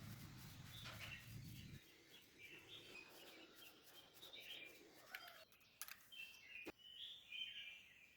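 Faint bird chirps in the background, with a low hum that cuts off about two seconds in and a couple of sharp clicks later on.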